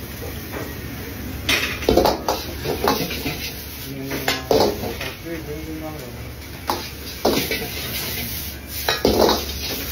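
Dishes and utensils clinking and knocking as they are handled and set down, with about ten irregular sharp clatters spread across several seconds.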